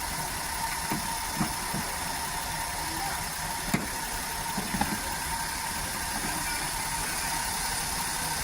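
Maruti WagonR's K-series three-cylinder petrol engine idling roughly and hunting because one cylinder is not firing. A few short clicks and knocks come over it, the sharpest about a third and halfway through.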